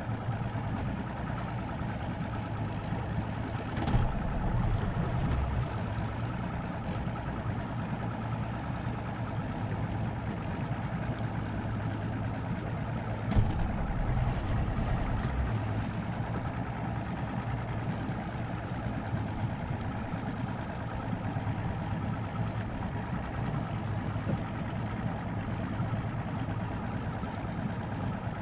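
Motorboat engine running steadily with a low hum, with a couple of brief knocks, the sharper one about halfway through.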